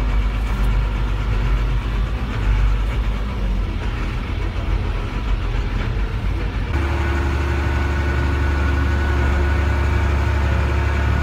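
Diesel engine of a Renault 6x6 military truck running under load, heard from inside the cab while driving off-road. About two-thirds of the way through, the sound switches abruptly to a steadier, deeper drone.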